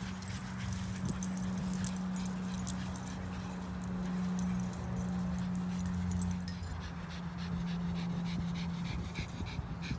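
A basenji and a small black dog play-growling as they wrestle, a low, nearly continuous grumble that breaks off briefly a couple of times.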